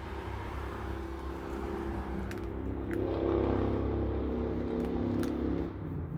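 Motor vehicle engine running steadily, growing louder over a few seconds, with a few faint clicks over it.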